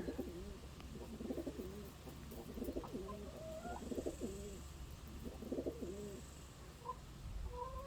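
Pigeons cooing: repeated short, low, arching calls, over a low steady rumble.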